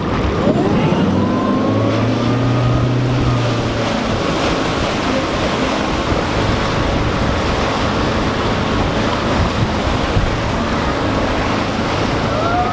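Wake boat engine revving up as it pulls a rider out of the water, then running steadily. Rushing wake water spray and wind buffeting the microphone are heard throughout.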